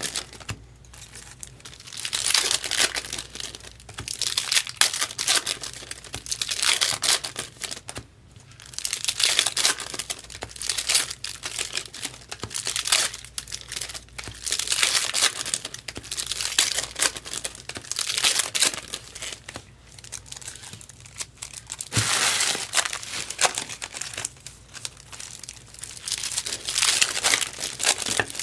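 Foil wrappers of 2024 Topps Chrome Cosmic trading-card packs crinkling and tearing as packs are opened one after another, in repeated bursts every couple of seconds.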